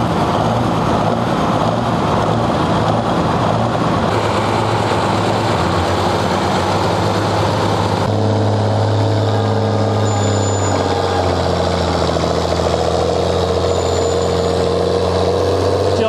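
Tractor engines running, then, from about halfway, a John Deere farm tractor's diesel engine working hard at steady revs as it drags a weight-transfer pulling sled.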